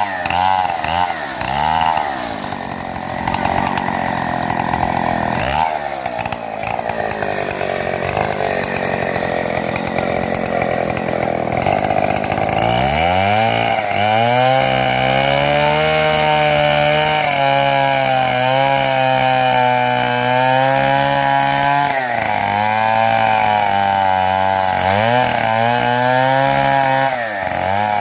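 Two-stroke chainsaw running hard as it mills timber freehand, ripping along a log. The engine revs up and down a few times at first, then about halfway through settles to a lower, wavering note as it works under load, with brief dips near the end.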